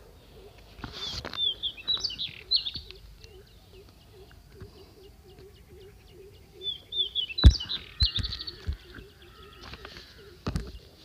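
Small birds chirping in two quick twittering bursts, over a steady train of short repeated low calls, with a few sharp knocks, the loudest a little past halfway.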